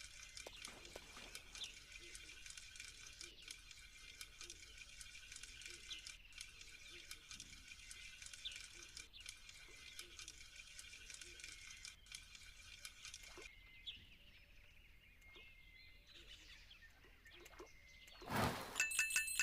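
Faint outdoor ambience with steady high-pitched chirping and small ticks, which fades about two-thirds of the way in; near the end comes a short, loud rush of noise.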